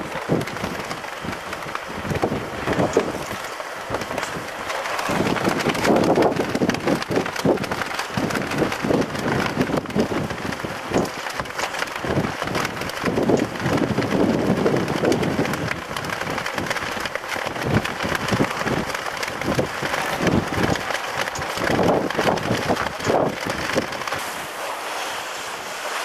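Gusty wind buffeting the microphone: an irregular rushing noise that swells and eases over open water.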